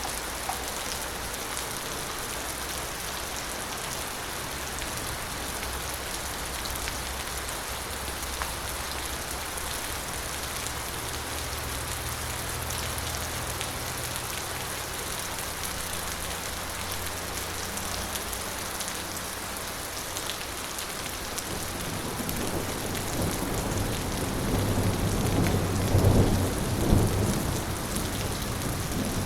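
Light rain falling steadily as an even hiss, with distant thunder rumbling low underneath. Near the end a louder roll of thunder swells up and peaks before easing off.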